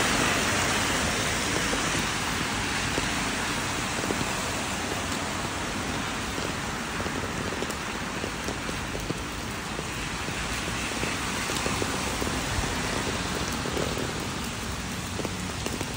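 Steady rain falling on wet pavement and road, with scattered ticks of drops. Near the start the hiss is louder as a car's tyres swish past on the wet road.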